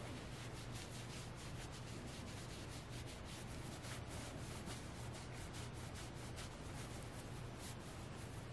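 Fingers scratching and rubbing the soft plush fabric of a fawn Squishmallow stuffed toy, in quick repeated strokes several times a second.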